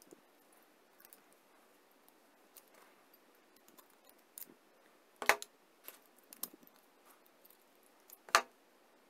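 Pliers clicking on the metal tines of a fork as they are gripped and bent: scattered light metallic ticks, with two sharp loud clicks about three seconds apart.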